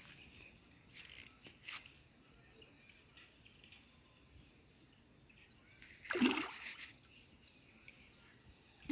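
A hooked fish splashing at the surface of the water, with a couple of small splashes early on and one louder splash about six seconds in, over a faint steady high hiss.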